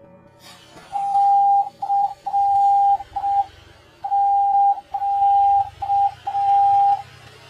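Slowed-down emergency alert audio: a single steady beep tone keyed on and off in a pattern of long and short beeps, like Morse code. Behind it is a hiss and low rumble that comes in about half a second in.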